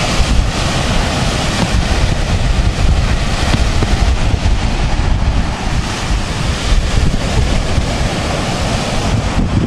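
Wind buffeting the microphone over a steady rush of breaking ocean surf.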